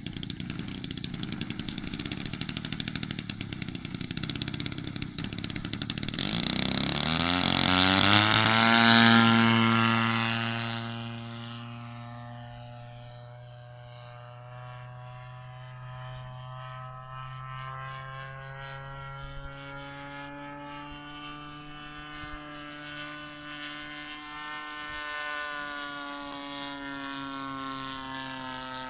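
Gasoline-converted Super Tigre 4500 two-stroke engine turning a 22x8 propeller on a large RC aerobatic plane at full throttle. It gets louder up to about nine seconds in, where the pitch drops sharply as the plane goes by. After that it is a steady, fainter engine drone as the plane climbs away, swelling slightly near the end.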